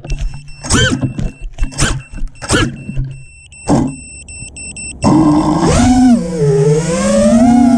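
Brushless motors of a 5-inch FPV quadcopter (T-Motor Velox V2 2207 1750 kv on 6S) give short bursts about once a second while the quad lies in the grass after a crash. A little after halfway they spin up to flying throttle as it lifts off, the pitch dipping and then rising.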